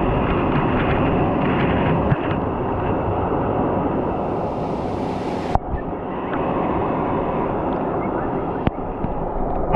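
Muffled, rumbling water noise of a camera held underwater in a river. A brighter hiss joins about four seconds in and cuts off suddenly a second and a half later.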